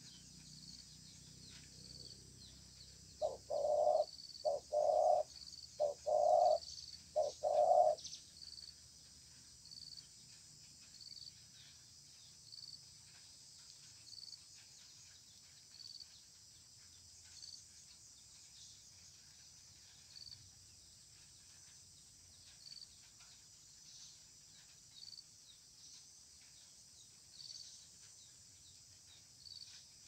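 Spotted dove cooing: two phrases of low coos, each starting with a short note followed by longer drawn-out ones, between about three and eight seconds in, the territorial call of a male facing a rival. Faint high chirps repeat about once a second throughout.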